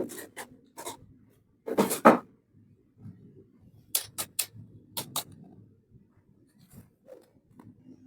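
Miniature toy kitchen pieces being handled and set down: a series of short, sharp clicks and clacks. The loudest pair comes about two seconds in, followed by three quick clicks around four seconds and two more around five.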